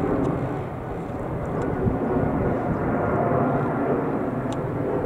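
Jet engines of a KLM twin-engine widebody airliner climbing out overhead after takeoff: a steady, broad rumble that swells and eases slightly.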